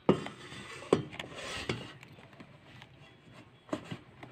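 Plastic air fryer basket being handled and slid into the fryer: three sharp knocks about a second apart, with rubbing and scraping between them and a few lighter clicks near the end.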